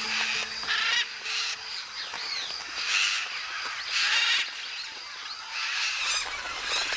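A flock of macaws squawking: harsh, raspy calls, several overlapping, coming in repeated loud outbursts.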